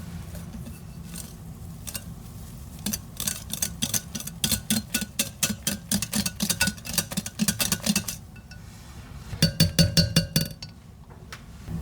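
A utensil knocking rapidly against a mixing bowl, about five strikes a second, as when mixing by hand. Near the end comes a short burst of louder, ringing clinks.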